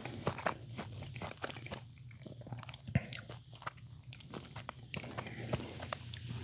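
Close-up chewing of a bite of pizza: irregular wet mouth clicks and small crunches, with a sharper crunch about three seconds in.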